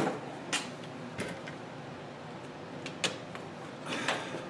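A few light, sparse metal clicks and knocks of hand tools and steel parts being handled on a go-kart frame while a stuck steering bolt is worked free.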